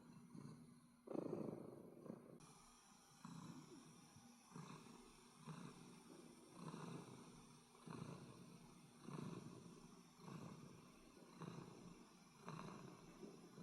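A pet cat snoring, faint and even, one snore about every second.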